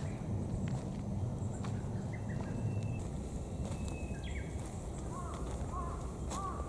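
Birds calling outdoors over a steady low rumble: scattered short high chirps, then a run of repeated hooked calls in the second half.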